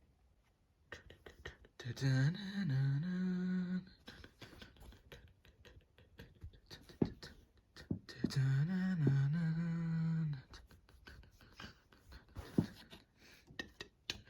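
A voice humming the same short tune twice, each phrase rising, dipping and ending on a held note, with scattered mouth clicks and taps in between.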